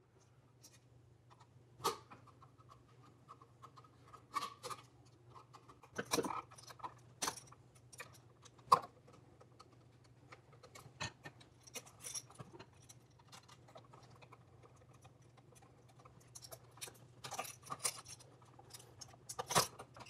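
A screwdriver backing out the terminal screws of an electrical outlet, with scattered light metal clicks and taps as the wires are worked free, the sharpest near the middle. A faint steady low hum runs underneath.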